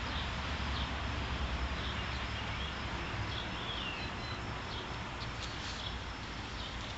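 Steady outdoor background noise with faint bird chirps now and then, one a short falling call.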